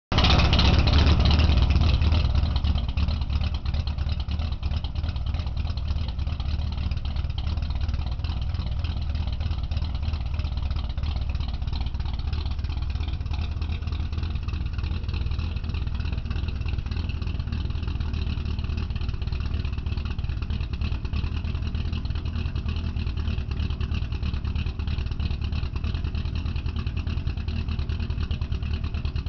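Twin-turbo 3.8 Ford V6 in a 1989 Mazda RX-7 idling steadily while warming up. It is a little louder for the first two seconds or so.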